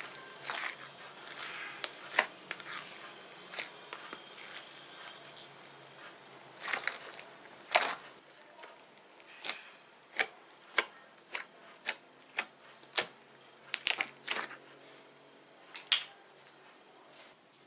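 Fluffy slime being squished and stretched by hand, giving a string of sharp pops and crackles as air pockets burst. The crackling is denser in the first few seconds, then comes as separate pops about once or twice a second.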